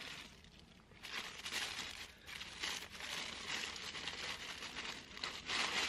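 Paper bag crinkling and rustling in the hands as a bread roll is unwrapped from it, starting about a second in.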